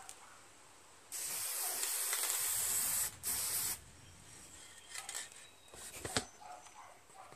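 Aerosol can of spray paint spraying in two bursts: a steady hiss of about two seconds, then a short one. A few faint ticks and one sharp click follow near the end.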